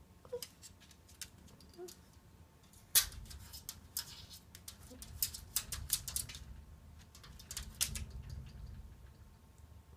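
A dog's claws clicking and tapping on a hardwood floor and against a mirror as it moves about and paws at the glass: scattered sharp taps, with one louder knock about three seconds in.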